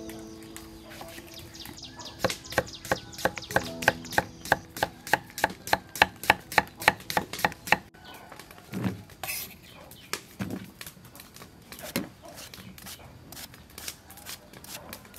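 Cleaver chopping through a green gourd onto a thick round wooden chopping block: a fast, even run of knocks, about three or four a second, for several seconds, then a few scattered knocks.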